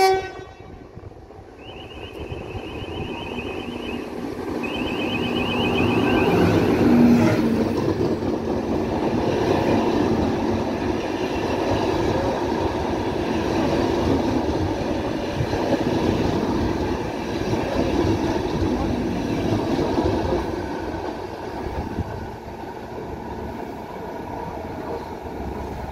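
The Ankara Ekspresi passenger train passing through the station at speed: a loud rumble and rush of wheels on rail that builds over the first seven seconds, holds steady while the carriages go by, and fades near the end. A high, rapidly pulsing beep sounds twice in the first seven seconds.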